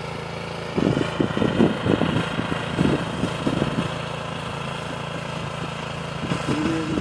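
Single-cylinder engine of a walk-behind two-wheel tractor (patpat) running steadily as it works the field.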